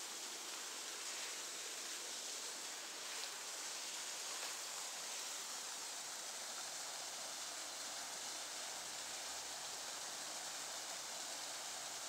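Small woodland waterfall and creek: a steady rush of falling water.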